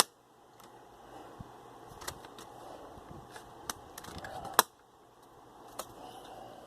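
Plastic keyboard bezel of a Dell Latitude D630 laptop being worked up by hand: soft rustling and scattered light plastic clicks. One sharper snap comes about four and a half seconds in.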